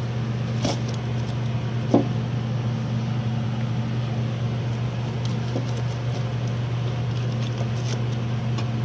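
Steady low hum, with a few faint clicks and a light knock about two seconds in.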